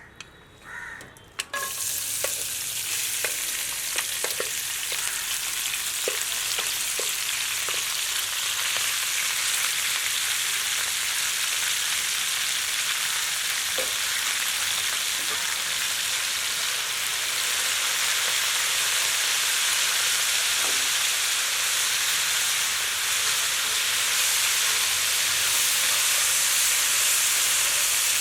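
Food frying in hot oil in a cooking pan: a dense sizzle starts abruptly about a second and a half in and carries on steadily, slowly growing a little louder. A few light clicks of a utensil are heard in the first several seconds.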